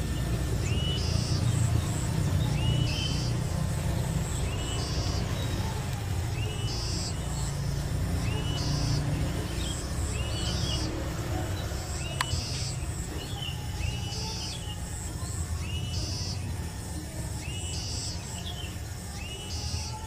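A short bird call, the chirping of munias, repeated at a very even pace about once a second like a looped recording, over a steady low rumble.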